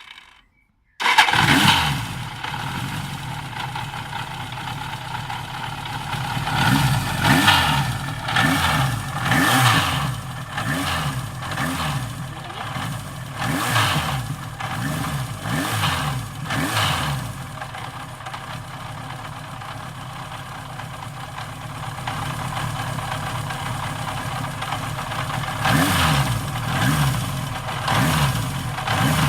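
Suzuki GSX motorcycle engine starting about a second in, then idling, with the throttle blipped repeatedly so the revs rise and fall. It settles to a steady idle, and there are a few more blips near the end.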